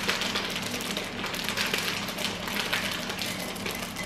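Chocolate chips poured from a packet into a mixing bowl of batter: a continuous dense patter of many small pieces.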